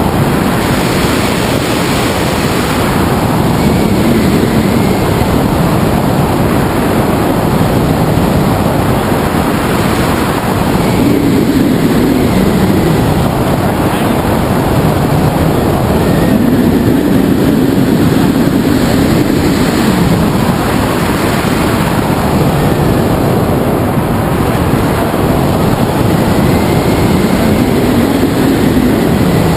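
Airflow rushing over the microphone of a camera mounted on a hang glider in flight: a loud, steady wind noise that swells and eases in slow waves every few seconds.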